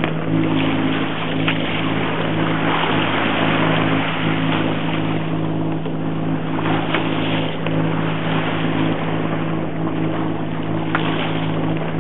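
Sailing yacht's inboard engine running steadily under way, a constant low hum, over a steady hiss of wind and water.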